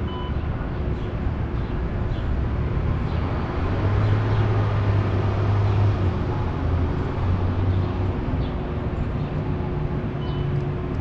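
Downtown street traffic noise, steady throughout, with a low vehicle engine hum that swells from about four seconds in and fades again near eight seconds.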